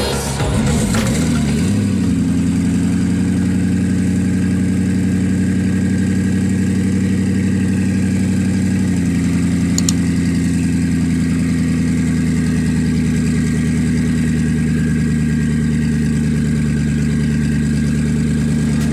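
Koenigsegg Regera's twin-turbo V8 idling steadily. It settles into its idle about two seconds in, and the idle drops slightly in pitch about nine seconds in.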